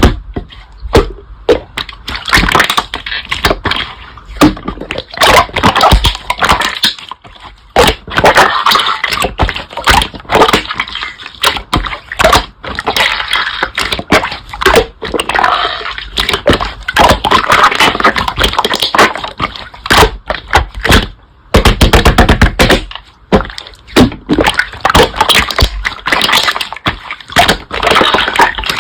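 Slime being squeezed, stretched and pressed by hand, with dense irregular wet crackling, popping and clicking and a few low squelches.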